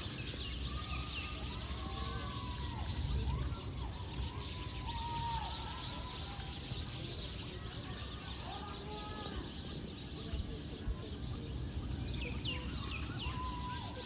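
Wild birds calling repeatedly, short arching calls one after another, with a few quick falling calls near the end, over a steady outdoor hiss and a low rumble.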